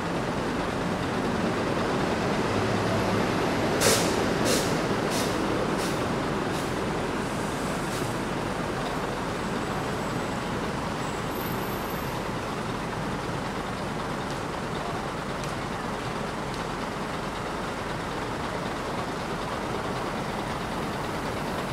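Daewoo BH115 bus's diesel engine idling steadily. About four seconds in there is a short, sharp burst of air hiss from the bus's air system, followed by a run of fainter ticks over the next few seconds.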